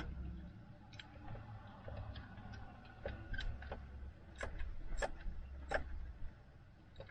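Scattered, irregular clicks and knocks of hand tools working on bolts, about a dozen sharp ticks with the loudest ones around four to six seconds in.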